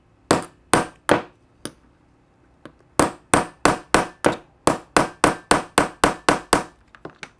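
Small hammer striking an awl punch through quilted vinyl into a wooden block: three blows, a pause, then a steady run of about a dozen harder blows at roughly three a second, ending with a few light taps. The many blows are needed because the felt layer keeps the punch from going through.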